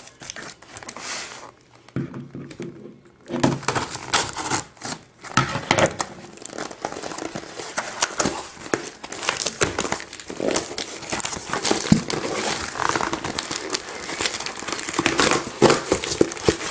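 Paper and cardboard packaging handled and opened by hand: a dense stream of rustling, crinkling and small crackles, with a brief lull about two seconds in.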